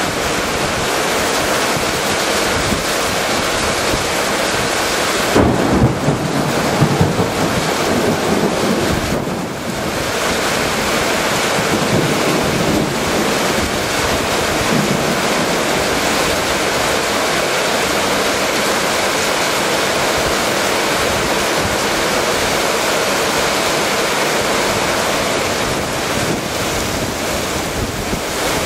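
Heavy rain pouring down in a storm, a steady loud rush, with strong wind buffeting the microphone. The wind comes in louder rumbling gusts about five to eight seconds in.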